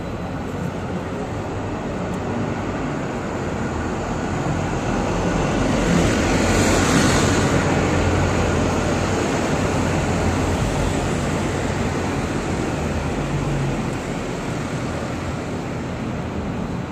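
City street traffic: a steady hum of road traffic, with a vehicle passing close that swells and fades about six to eight seconds in.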